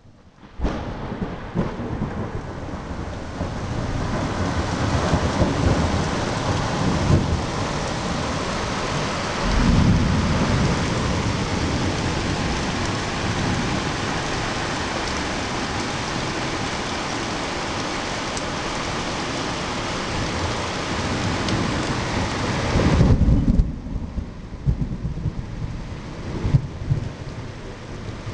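Heavy rain falling steadily in a summer thunderstorm, with deep rumbles of thunder about ten seconds in and again near the end. After the second rumble the rain hiss thins out.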